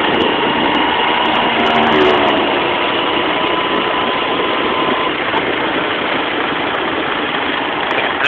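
A vehicle engine running steadily with road and wind noise while travelling along a road, with a faint steady whine that stops about five seconds in.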